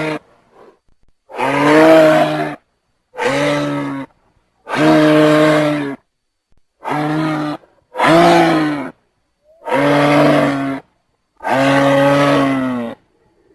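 Giraffe calling: a series of seven low, pitched calls, each about a second long, separated by brief silences.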